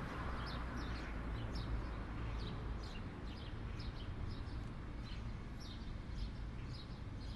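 Birds chirping: short high chirps, about two a second, over a low steady rumble of background ambience.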